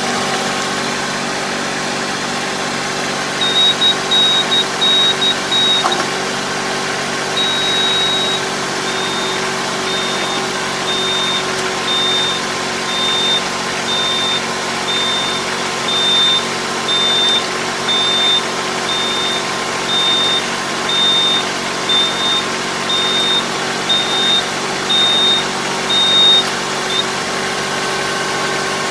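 Tractor engine running steadily at idle while an electric folding puddling harrow is folded up, with a high electronic warning beep that comes irregularly at first, then repeats about once a second and stops near the end.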